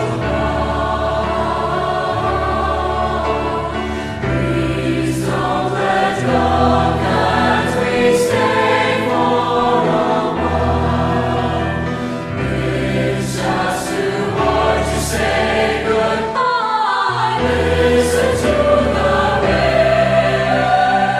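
Background music: a slow choral song, layered sung voices over sustained low notes that change every couple of seconds.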